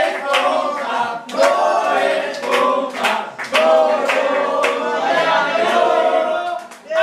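A group of people singing a chant together, with hands clapping in time about twice a second; it breaks off just before the end.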